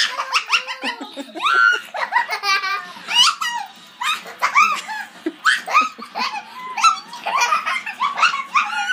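Young child laughing hard in repeated bursts of giggles as a dog nuzzles at her belly.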